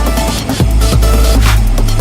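Electronic dance music with a heavy bass and a driving drum beat.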